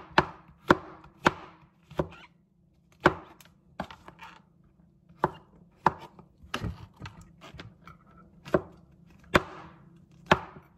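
Kitchen knife chopping vegetables on a cutting board: a run of sharp, irregular knocks, about one or two a second, some with a short slicing hiss after the knock.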